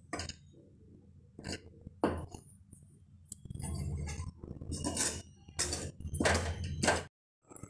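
Steel spoon stirring and clinking against a metal pot of jaggery melting in oil, with several sharp clinks. It cuts off suddenly near the end.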